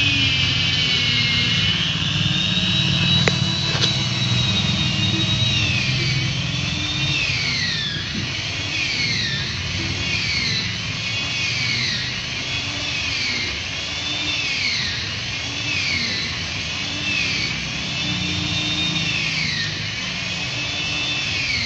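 Chainsaw running under load while cutting a tree: a high motor whine, steady at first, then swinging up and down in pitch about once a second as the saw bites and eases. A single sharp click sounds a few seconds in.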